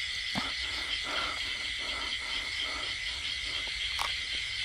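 Frogs croaking in a night-time chorus, short calls repeating every few tenths of a second over a steady high insect drone, with one sharp click about four seconds in.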